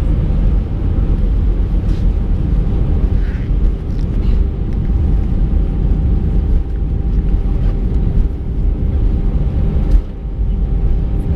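Airbus A319 cabin noise with the engines running: a loud, steady low rumble of the aircraft rolling on the ground after landing, with a steady hum over it and a few faint knocks.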